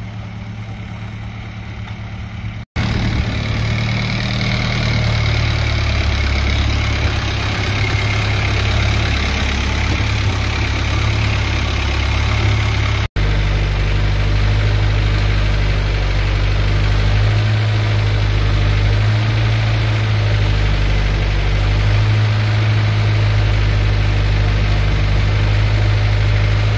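Small river ferry's engine running steadily with a low drone, heard from aboard the boat; quieter for the first few seconds, then much louder.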